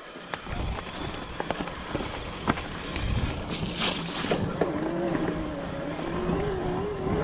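Electric mountain bike riding a dirt forest trail: wind rumble on the camera microphone, tyre noise, and scattered rattles and knocks from the bike, with a short hiss a little past halfway. From about two-thirds in, the Turbo Levo's electric mid-drive motor whines, its pitch wavering with the pedalling.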